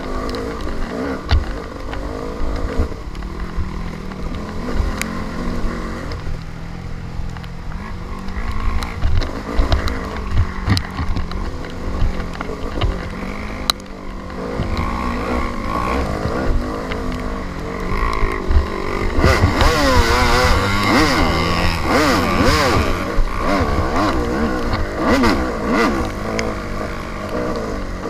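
Dirt bike engine running hard under the rider, its revs rising and falling constantly over rough trail. The pitch swings up and down quickly and more strongly through the second half.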